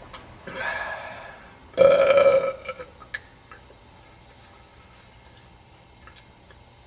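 A man breathes out hard, then lets out one loud burp about two seconds in, just after chugging a can of beer; a couple of faint clicks follow.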